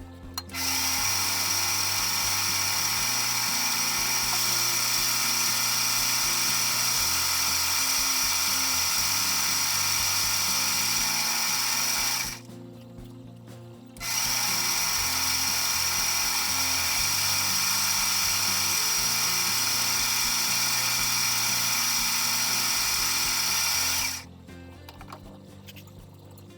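Metal-cutting machine work on a steel key blank: a loud, steady, hissing high whine in two long runs, breaking off for about two seconds near the middle. Quiet background music with a slow-changing bass line plays underneath.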